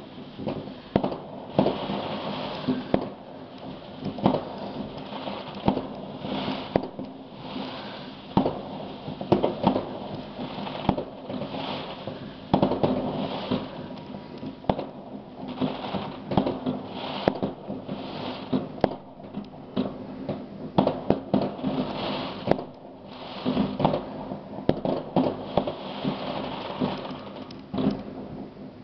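Fireworks and firecrackers going off: an irregular, unbroken run of sharp bangs and crackles, many of them overlapping.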